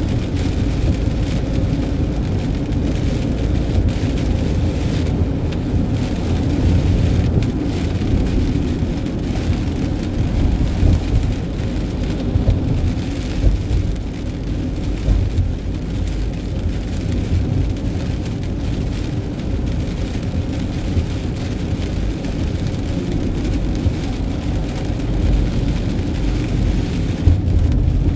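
Steady road noise of a vehicle driving on a wet motorway in the rain: a low rumble with the hiss of rain and wet tyres, unchanging throughout.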